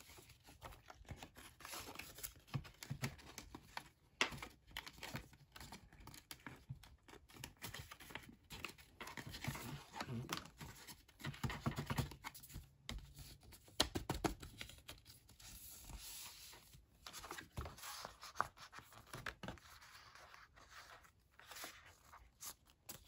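Folded paper calendar insert being handled and unfolded by hand: faint, irregular paper rustling and crinkling with small ticks and taps.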